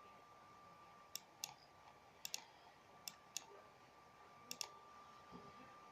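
Quiet sharp clicks, mostly in close pairs about once a second, over a faint steady high tone and hiss.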